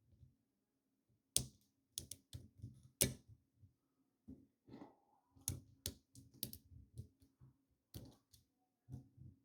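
Lock pick and tension wrench working the keyway of a Master Lock 1921D padlock held in a vise: irregular metallic clicks and scrapes as the pins are picked, the loudest about a second and a half in and again about three seconds in.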